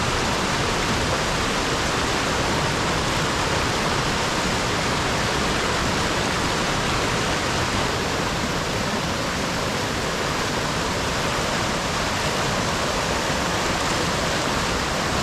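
Steady rush of a swift, high-running mountain stream as it pours over the top of a limestone waterfall.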